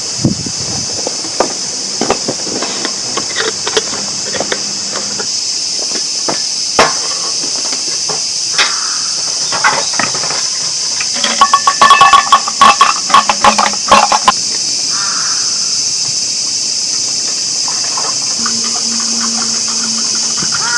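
Insects drone steadily and high-pitched throughout. Scattered knocks and clatter come over it, with a quick burst of rattling clicks a little past the middle.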